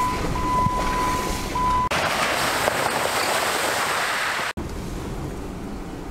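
Jeep Wrangler driving on a gravel forest road: engine and road noise heard from inside the cab, switching abruptly about two seconds in to a brighter wash of tyres on gravel as it drives past, then back to duller cab noise near the end. A steady high-pitched tone with short breaks sounds over the first two seconds.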